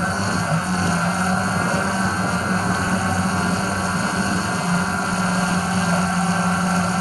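DJI Phantom 4 Pro quadcopter's motors and propellers running with a steady hum.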